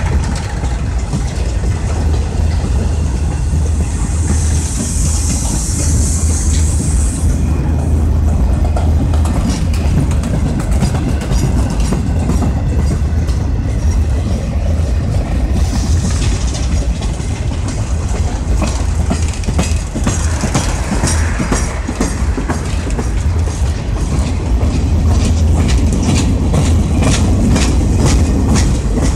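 Freight train boxcars rolling past close by: a steady low rumble of steel wheels on rail, with clicks as the wheels pass over rail joints that come thicker near the end. A high hiss rises for a few seconds about four seconds in.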